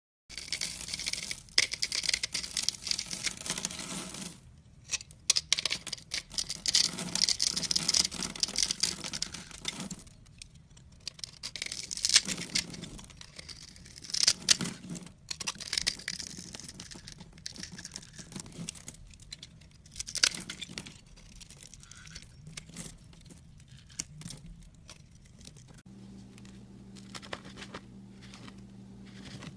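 Knife blades scraping and cutting through crumbly soap and a bath bomb: dense crackling, crumbling scrapes in runs of a few seconds with short pauses between them. Louder in the first half; near the end the scraping is quieter over a faint steady hum.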